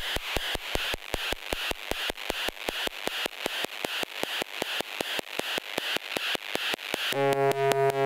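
Twintropiques 23 Psychoacoustic synthesizer playing a fast, even train of clicking pulses, about five a second, over a hissy noise band. Just after seven seconds in it switches to a louder, buzzy pitched tone that pulses at the same rate.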